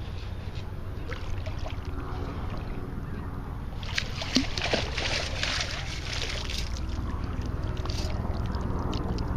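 Gritty, hissing rattle of sand being dug and sifted through a scoop to recover a metal-detector target, loudest from about four to six and a half seconds in, over a steady low background rumble.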